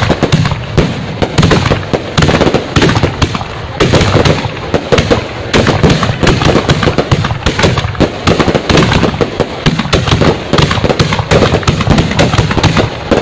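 Fireworks crackling without a break: a dense, fast run of loud pops and bangs, many a second.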